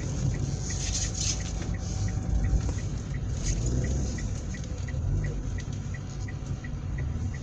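Car's turn-signal indicator ticking evenly, about three ticks a second, over the steady low rumble of the car running.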